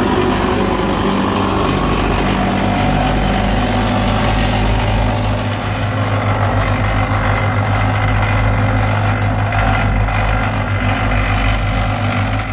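Ride-on twin-drum roller running steadily as it drives over and compacts a loose stone driveway sub-base, with a strong low engine hum.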